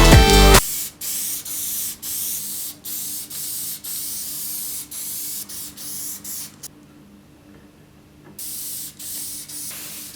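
Loud electronic music cuts off under a second in, followed by a run of short hissing spray bursts, about two a second, with a pause of nearly two seconds in the middle.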